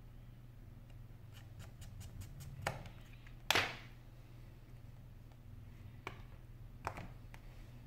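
Small clicks and taps from handling an iPhone 5 and its parts by hand during a repair: a run of light ticks, one sharper knock a little over three seconds in, and a few single clicks later. A steady low hum runs underneath.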